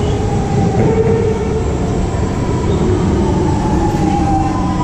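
Singapore MRT metro train pulling into the platform and coming to a stop: a loud, steady low rumble with a whining tone that moves higher about three seconds in.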